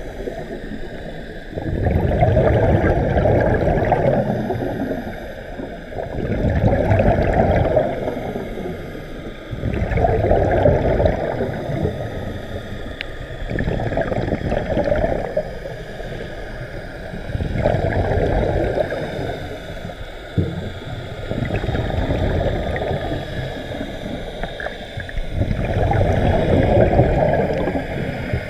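Scuba regulator exhaust bubbles heard underwater: a bubbling rumble with each exhalation, seven of them at an even pace of about one every four seconds, with a faint steady hiss in between.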